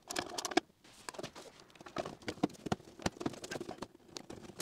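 Irregular light clicks and scraping of hand work with a screwdriver on metal hose clamps, with rustling of a corrugated plastic hose being fitted.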